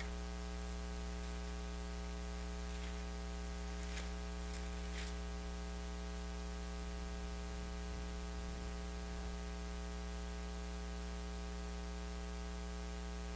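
Steady electrical mains hum with a buzzy stack of overtones over faint hiss. A few faint soft ticks come between about three and five seconds in.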